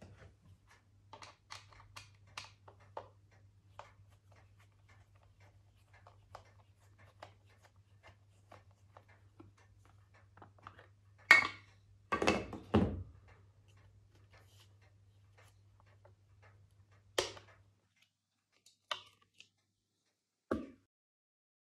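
Hands working on a handheld meter with a small screwdriver and AA batteries: scattered light plastic clicks and ticks while the battery cover is unscrewed. Then a few louder knocks and clatters, the loudest about halfway through, as the cover and batteries are handled.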